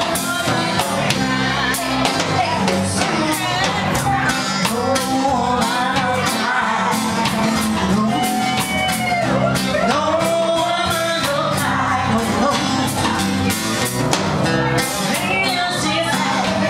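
Live band playing a reggae song: a woman singing the lead over acoustic guitar, electric guitar and a drum kit keeping a steady beat.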